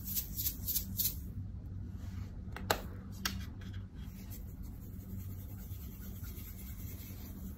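Small plastic container being handled over a bowl of slime: a few light clicks and taps, two sharp clicks of its cap a little under three seconds in and about half a second later, then a soft steady scratchy rustle as its contents are shaken out.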